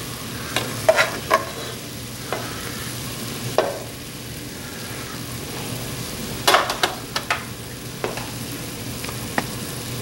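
Olive oil sizzling steadily in a stockpot as cooked chicken pieces are lifted out with a plastic slotted spoon, with sharp knocks and scrapes of the spoon against the pot, in a cluster about a second in and a louder group around six and a half seconds.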